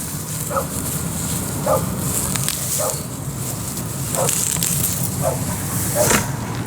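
A dog whimpering in short, faint calls, about six of them, over the rustle and crackle of weeds being pulled by hand.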